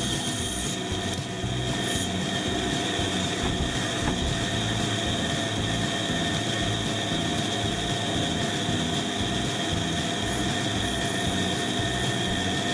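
Pégas fine-cut band saw running steadily: a constant motor hum with a steady high whine from the moving blade.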